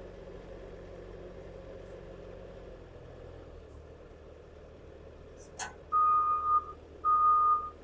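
A vehicle engine idling low, then a sharp clack about five and a half seconds in, followed by two long beeps of a reversing alarm.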